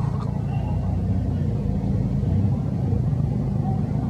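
Steady low rumble, even in level throughout.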